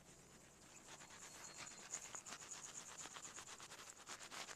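Faint, quick, even run of soft rustling taps from a hand sieve being shaken as wheat flour is sifted into a wide pan, starting about a second in.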